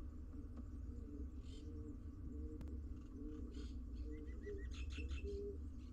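Pigeons cooing over and over in low phrases, with short high chirps of small birds between them and a steady low hum underneath.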